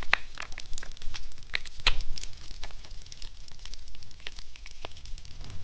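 Sparse, irregular small clicks and light crackles, a few a second, as candy and its packaging are handled: the jam packet being opened and added to the popping-candy 'egg'.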